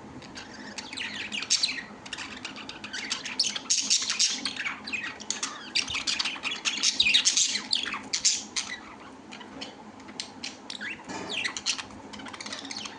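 Birds, likely caged pet birds, squawking and chirping without pause, many short calls overlapping, busiest in the middle.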